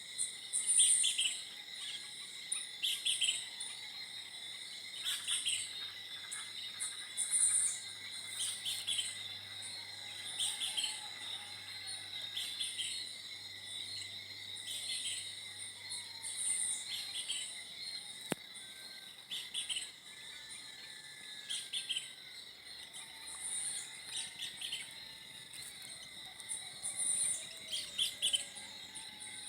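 A bird repeating a short high call every second or two over a steady, high-pitched drone of insects.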